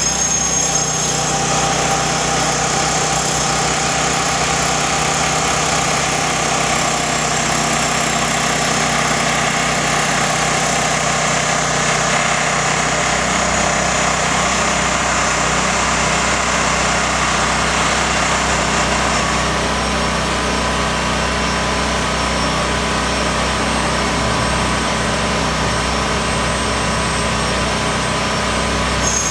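A small engine running steadily at an even level.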